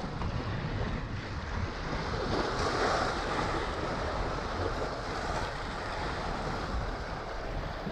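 Wind buffeting the microphone over sea water washing, a steady rushing noise with low rumble that swells briefly about three seconds in.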